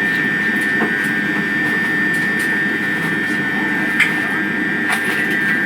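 Steady running noise of a passenger vehicle heard from inside: an even rumble under a constant high-pitched whine, with a few faint clicks.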